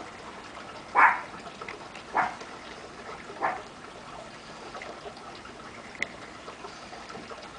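A pet dog barking three times, a little over a second apart, the first bark the loudest.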